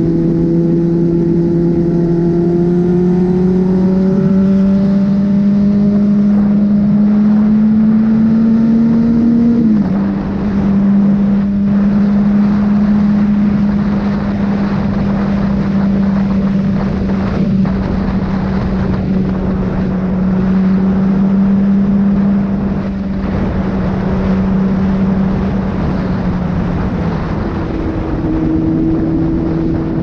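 Honda CBR600RR's inline-four engine running under way. Its pitch climbs slowly for the first ten seconds, drops sharply for a moment about ten seconds in, then holds a steady cruise and eases lower near the end, with wind rushing past.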